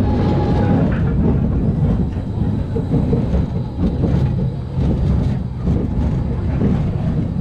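SBF Visa spinning coaster car running along its steel track, with a steady wheel rumble full of rattles and clacks.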